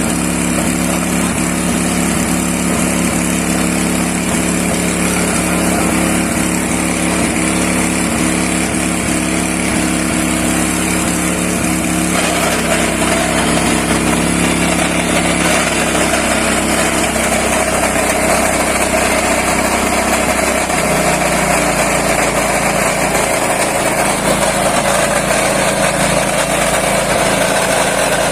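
Engine-driven wet coffee hulling machine running steadily. Its tone shifts about twelve seconds in and again after about twenty seconds.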